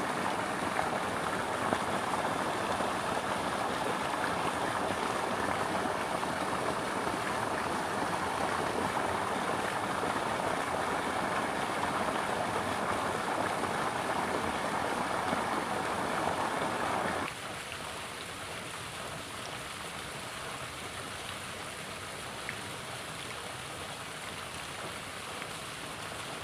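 Shallow river running fast over stones, a steady rushing of water. About two-thirds of the way through it drops abruptly to a quieter, softer rush.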